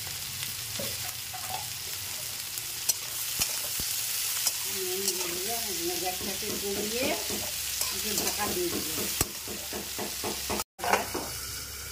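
Sliced potatoes and pointed gourd sizzling in hot oil in a steel kadai, turned and scraped with a flat metal spatula, with scattered sharp clicks of metal on metal. The sound drops out for a moment near the end.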